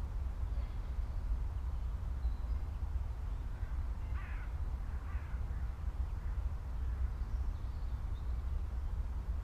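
Quiet farm ambience: a bird calls twice, about four and five seconds in, over a steady low rumble, with a few faint, higher chirps now and then.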